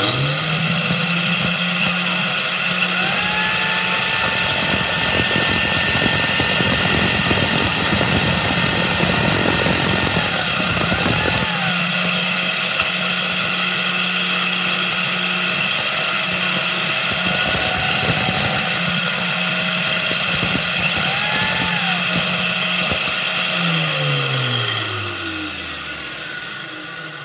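Bench-clamped angle grinder running steadily while the tip of a broken drill bit, spun in a power drill, is ground against its wheel in two spells, shaping a revolver firing pin. Near the end the grinder is switched off and winds down with a falling hum.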